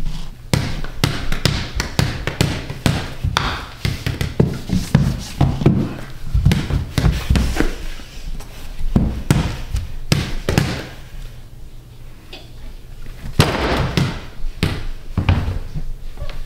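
A small basketball dribbled on a hardwood floor: repeated, unevenly spaced bounces, easing off for a couple of seconds about two-thirds of the way through.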